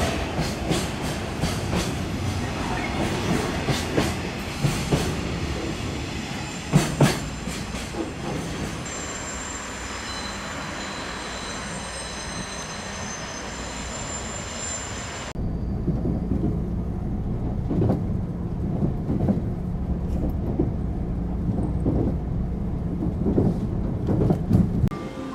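Freight train running past on the rails, wheels clacking over rail joints, with thin high wheel squeal in the middle. Partway through the sound changes suddenly to a lower, steadier drone, still with occasional clacks.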